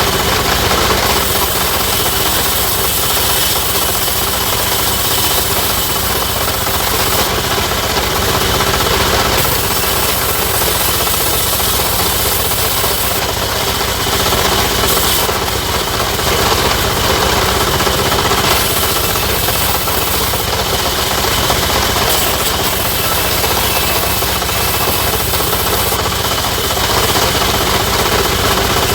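Sawmill machinery running continuously: a loud, steady mechanical din with no breaks.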